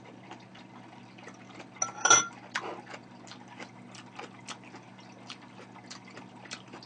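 Close-miked chewing of a mouthful of soup: many small wet mouth clicks and smacks. About two seconds in, a metal spoon clinks with a short ring against a ceramic bowl.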